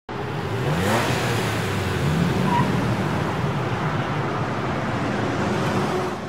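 Road traffic sound: a steady wash of vehicle noise, with engine notes rising in pitch twice as vehicles accelerate or pass.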